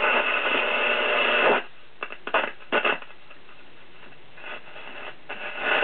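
Zenith Trans-Oceanic portable radio's speaker hissing with static. About a second and a half in it drops to a low hiss broken by a few sharp crackles and pops, then the loud static comes back near the end.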